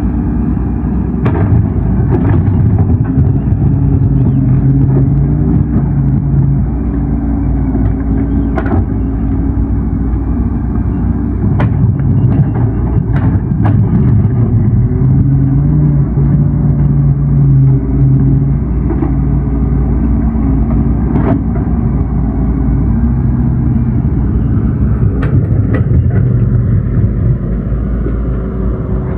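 Excavator's diesel engine and hydraulics running under working load, the engine note rising and easing as it digs, with occasional sharp knocks from the bucket and boom.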